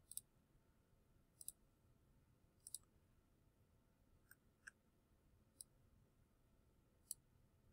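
Faint computer mouse clicks, sparse and a second or more apart, some in quick pairs, over near silence.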